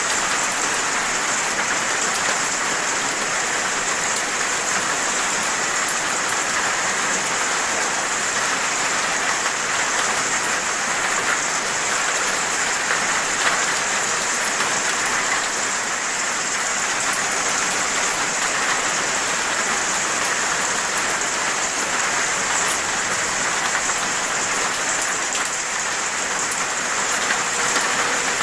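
Steady, heavy rain falling, with the patter of drops hitting surfaces.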